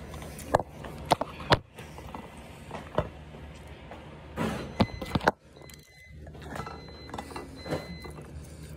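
A few sharp knocks and clicks from a phone being handled and swung about, over a steady low hum.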